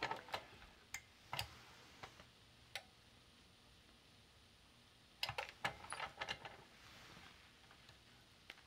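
Light clicks and taps from working an 8-inch impulse heat sealer: the sealing arm is lowered and pressed down, held quietly for a couple of seconds while it seals, then let up with a quick cluster of clicks about five seconds in.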